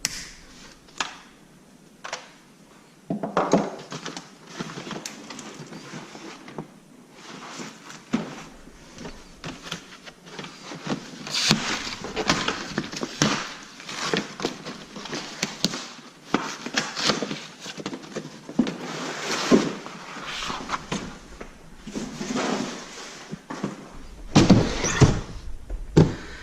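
A cardboard shipping box and its packaging being opened and handled: irregular rustling and scraping with clicks and occasional thunks, with a louder cluster of handling noise near the end.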